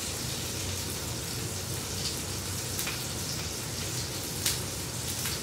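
Water running steadily from a kitchen sink tap, with a few sharp knocks of things being handled in the sink; the loudest knock comes about four and a half seconds in.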